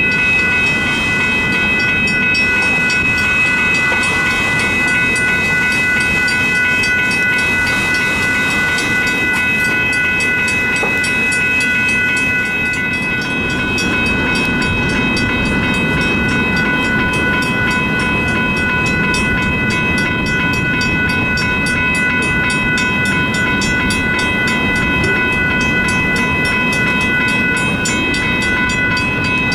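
Freight cars rolling past, their wheels clacking and rumbling over the rails, while the crossing bell rings steadily with the signals active.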